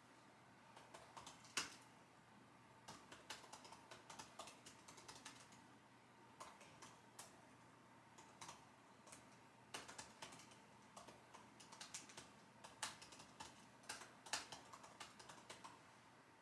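Typing on a computer keyboard: irregular runs of quiet key clicks with short pauses between them, and a few louder keystrokes, one about a second and a half in.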